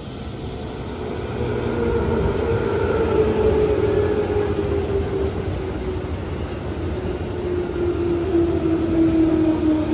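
Electric commuter train coming in and running past close by. Its running noise grows louder over the first few seconds, and a humming tone in it slowly falls in pitch.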